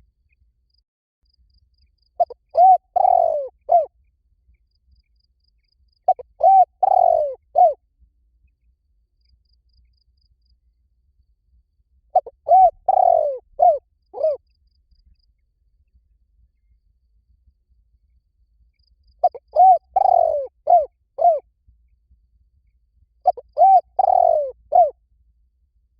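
Spotted dove cooing: five phrases of several arched coo notes each, spaced a few seconds apart.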